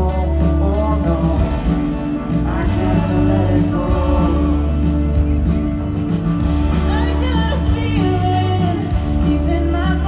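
A live band plays a song with guitars, bass and drums under a lead vocal, heard from the audience in a large arena hall.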